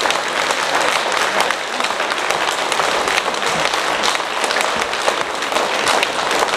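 Audience applauding: many people clapping at once in a dense, steady patter.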